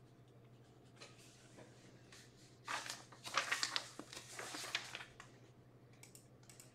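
Faint rustling and crinkling of something being handled, with a few small sharp clicks, starting about three seconds in and lasting about two seconds, over a steady low electrical hum.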